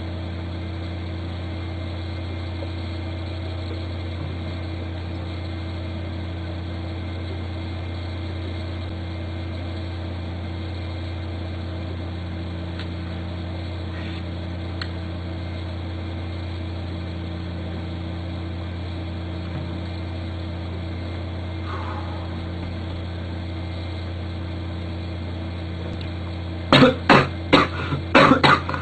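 A steady low electrical hum, then near the end a man coughs hard six or seven times in quick succession after swallowing neat vodka.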